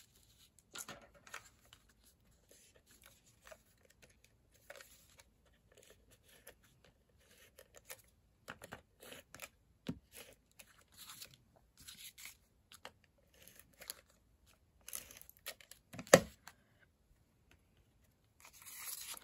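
Faint rustling and crackling of cardstock being handled, with the crackle of a tape runner laying adhesive on the panel. A single sharp tap about sixteen seconds in is the loudest sound.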